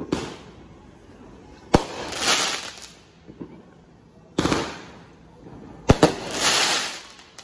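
Aerial fireworks bursting overhead: four sharp bangs a second or two apart. Each bang is followed by about a second of crackling sparks.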